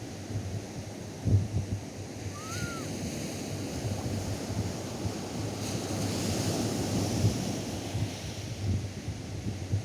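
Atlantic surf washing onto a sandy beach, one wave swelling louder about six seconds in, with wind buffeting the microphone in low gusts. A brief faint chirp-like call sounds a few seconds in.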